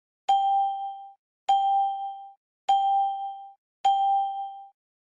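A bell-like ding struck four times, about a second apart, each at the same pitch and ringing out for just under a second.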